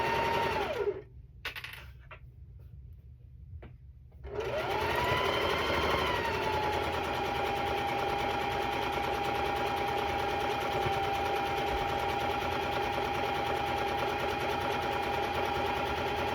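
Electric sewing machine stitching a long quilt seam: its motor whine and needle clatter stop about a second in. After a pause of about three seconds it starts again, speeds up briefly, then runs steadily.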